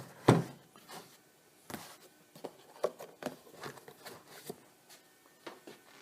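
Irregular knocks, taps and light clicks of engine parts and their boxes being handled on a bench, with one loud knock about a third of a second in.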